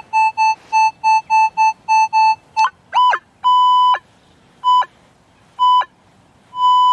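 Minelab CTX 3030 metal detector sounding its audio response over a buried target. It gives a quick run of short beeps, about five a second, then several longer tones with a brief rising and falling swoop about three seconds in, and one long steady tone near the end. This is a clean, repeatable high tone, which the detectorist calls a lovely sweet signal.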